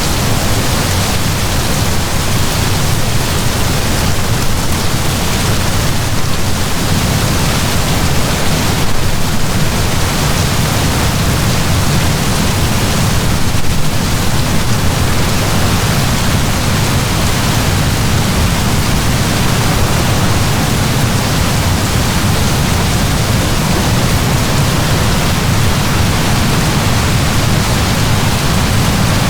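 Heavy rain falling in a steady downpour, a dense even hiss with a deep rumbling low end.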